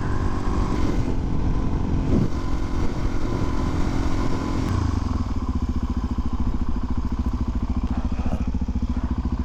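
Motorcycle engine running. About five seconds in, its note drops and settles into an even, pulsing beat.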